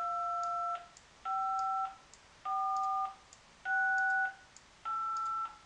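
Five DTMF keypad tones played one after another on an online tone generator, a little under one a second. Each beep lasts about two thirds of a second and is two steady sine tones sounding together, one low and one high, with the pair changing from key to key as different digits are pressed.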